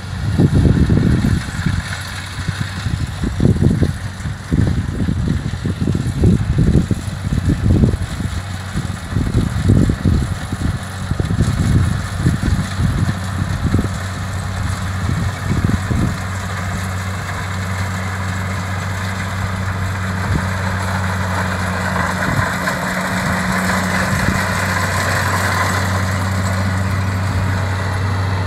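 Kubota DC-70 combine harvester's diesel engine and machinery running steadily while it harvests rice, a low hum that grows louder and brighter as the machine comes closer. Irregular low buffeting through the first half or so dies away after that.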